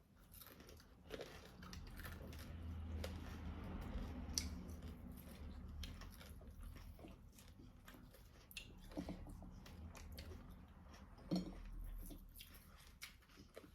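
A person chewing food close to the microphone, with many short mouth clicks.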